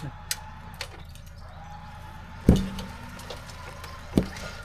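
Old Jeep Cherokee being rolled back onto its wheels and landing: a heavy thud about two and a half seconds in, then a smaller thud as it settles, over a steady low hum.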